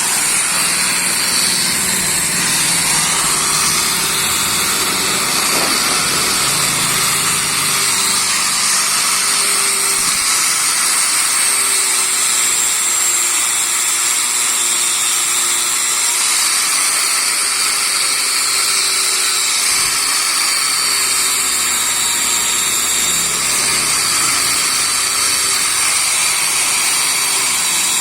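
Angle grinder running with a wire brush scouring paint off a motorcycle engine case: a loud, steady high-pitched whir and scrape that wavers slightly as the brush is worked over the metal.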